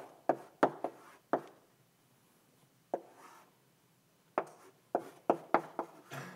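Chalk writing on a blackboard: a string of sharp taps and short scrapes as letters are written. Four quick taps in the first second and a half, a near-quiet pause of about three seconds broken by a single tap, then a quicker run of taps near the end.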